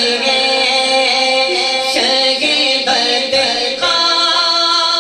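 A man singing a naat, a devotional praise song, into a microphone, drawing out long melodic notes.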